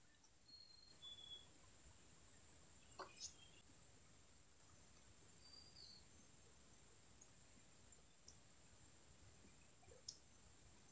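Insects shrilling in one steady, high, unbroken drone, with a few faint short chirps and a brief click about three seconds in.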